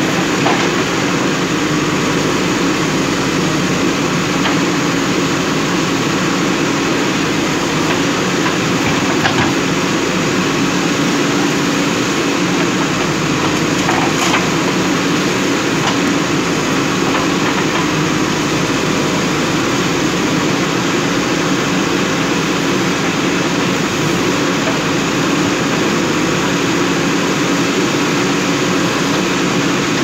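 JCB 3DX backhoe loader's diesel engine running steadily as the backhoe digs out a tree stump, with a few faint knocks.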